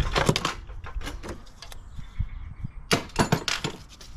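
Handling noise: several clusters of sharp clicks and knocks, near the start, about a second in and again about three seconds in.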